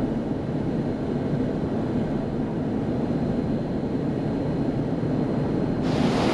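Steady low rumble of a vehicle on the road, engine and tyre noise. Near the end it cuts abruptly to the brighter hiss of surf and wind on the microphone.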